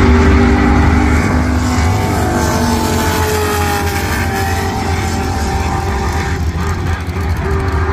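Two muscle cars' engines at full throttle on a drag-strip pass, a heavy low rumble with pitch lines that slowly glide, fading gradually as the cars pull away down the track.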